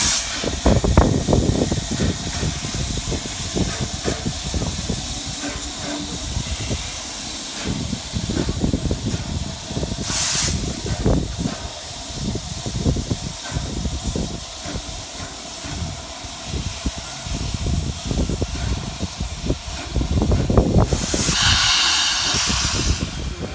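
Steam locomotive standing with a steady hiss of steam over a low rumble, a short burst of escaping steam about ten seconds in and a louder release of steam lasting a couple of seconds near the end.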